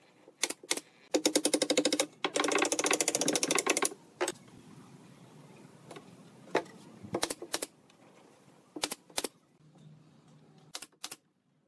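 Pneumatic brad nailer firing nails into pine slats: two single shots, then two rapid runs of shots starting about a second in, followed by scattered single clicks and knocks.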